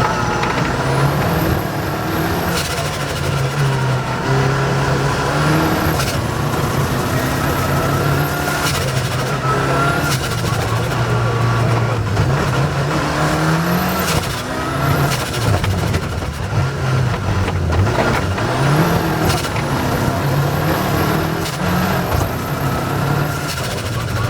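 Rally car engine driven hard on a stage, its revs climbing and dropping again and again through gear changes, with a high whine that rises with the revs. Sharp knocks from the car running over rough ground come through now and then.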